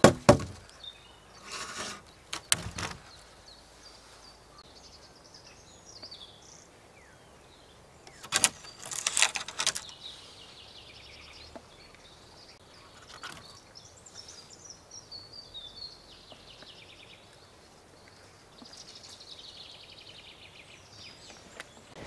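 Wooden branches knocking and scraping together in a few short bursts: at the start, about two seconds in, and around eight to ten seconds in. Between them, birds chirping faintly.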